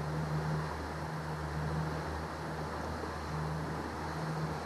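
Yamaha 70 hp outboard motor running steadily as the boat cruises at about 6.5 mph, a constant low hum under an even rush of water and wind.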